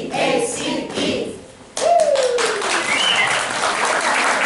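A group of voices ends the last line of a song, then about two seconds in applause breaks out suddenly, with a falling cheer at its start and high cheers from children.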